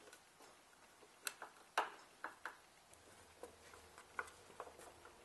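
Phillips screwdriver driving a wood screw into a wooden table shelf, giving a series of irregular clicks, the loudest about two seconds in.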